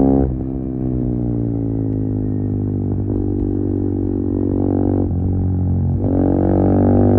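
KTM Duke 390's single-cylinder engine running through an Akrapovic slip-on exhaust with the catalytic converter removed, ridden through the gears. The revs drop sharply just after the start, then climb again with brief breaks about three and five seconds in, and it runs louder from about six seconds in.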